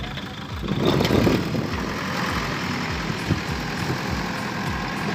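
Diesel engine of a JCB backhoe loader idling with an even low pulse, about two to three beats a second. A brief rush of louder noise comes about a second in.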